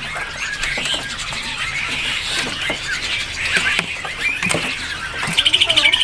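Many caged songbirds chirping and twittering at once, a dense overlapping chatter of short high calls, with a rapid trill about five seconds in.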